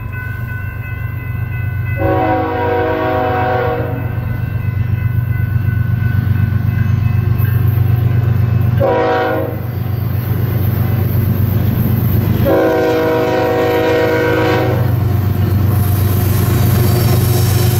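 Air horn of an approaching BNSF freight train's lead locomotive, a GE Evolution-series diesel, sounding a long blast, a short one and another long one, typical of a grade-crossing warning. Under the horn, the diesel locomotives give a steady low rumble that grows louder as the train nears.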